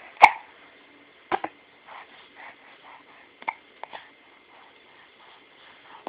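Hiccups, a series of about half a dozen short, sharp hics, the first and loudest just after the start and a close pair a little over a second in, with fainter short sounds between them.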